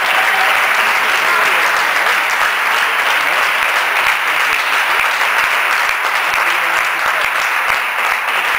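Spectators and team benches applauding steadily in a sports hall, with a few voices mixed in, easing slightly near the end.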